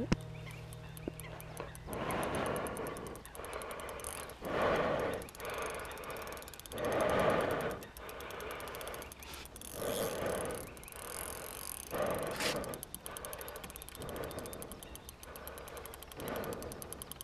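Large spinning reel being wound in short bursts of about a second, every two to three seconds, with a rapid gear rattle, as a hooked carp is pumped and reeled toward the net.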